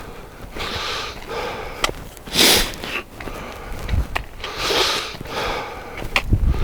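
A hiker breathing hard close to the microphone while walking, one breath about every two seconds, with a few sharp clicks near the end.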